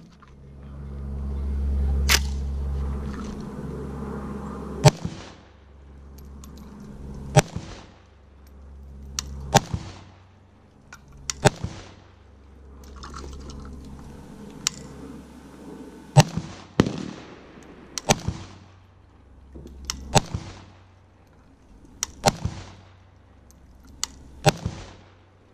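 Century Arms C39 V2 semi-automatic AK-47 rifle in 7.62×39mm firing single shots, about fifteen in all, spaced a second or two apart and sometimes in quick pairs. Each sharp crack trails off in a short echo.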